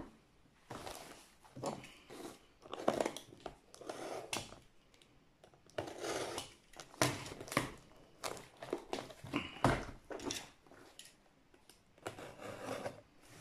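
Box cutter blade slicing and scraping through the end of a cardboard box in short, irregular strokes, with rustling as the box is handled.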